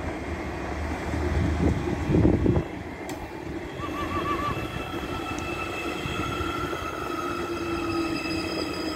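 Siemens Desiro class 460 electric multiple unit passing close by, its wheels rumbling on the rails, loudest about two seconds in. From about three and a half seconds in, several steady high tones ring over the quieter running noise.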